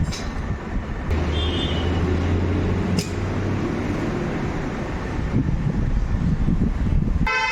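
Restored Royal Enfield Electra 350's single-cylinder four-stroke engine running with a steady low rumble, with a sharp click about three seconds in.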